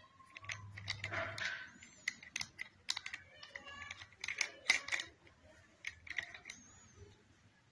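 Small plastic toy car handled in the hand, giving a run of quick, irregular plastic clicks and taps.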